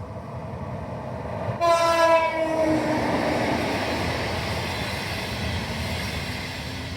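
Train horn sounding one slightly falling blast of just over a second, about a second and a half in, over the steady rush of a passing train that lasts throughout.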